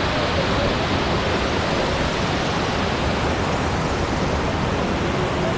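Waterfall rushing steadily, an even roar of falling water with no pauses.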